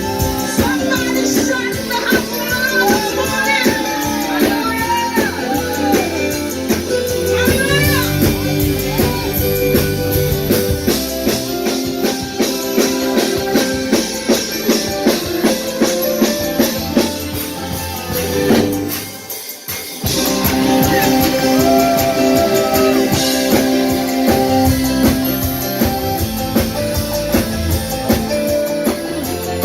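Live band music with drum kit and guitar, a melody line gliding up and down over sustained chords in the first few seconds. The sound drops out briefly about two-thirds of the way through, then the band carries on.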